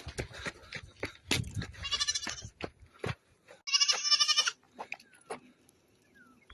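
Goat bleating twice, a short high wavering call about two seconds in and a longer one about four seconds in, with scattered clicks and knocks around them.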